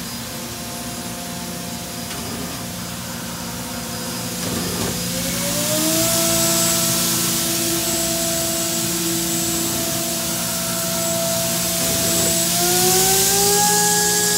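Kitamura Mycenter 4XiF CNC vertical machining center running with a steady whine over a hiss. About five seconds in, and again near the end, the whine rises in pitch and settles on a higher note, getting louder, as the 20,000 rpm spindle is stepped up in speed.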